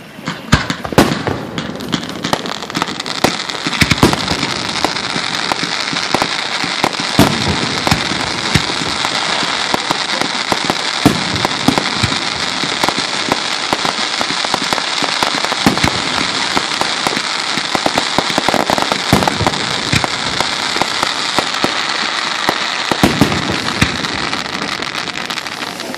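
Fireworks going off in a dense barrage: a continuous crackling hiss with many sharp bangs throughout, setting in suddenly at the start.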